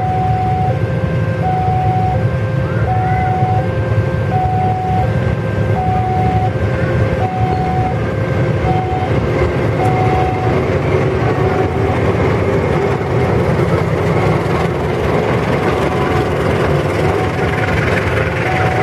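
Indonesian diesel locomotive and passenger carriages rumbling past a level crossing, the wheel-and-rail noise growing as the carriages go by. Over it, the crossing's electronic alarm keeps sounding two alternating tones, high then low, about every two-thirds of a second.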